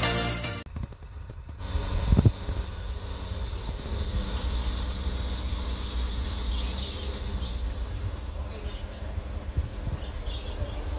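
Lamborghini Urus twin-turbo V8 idling with a steady low rumble, after a short loud thump about two seconds in.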